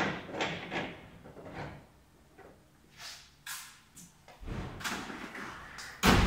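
A plywood workbench on casters rolled into a shed with a run of knocks and rumbles, then a few clicks and thumps. Near the end the corrugated metal shed gate comes down and shuts with a loud bang.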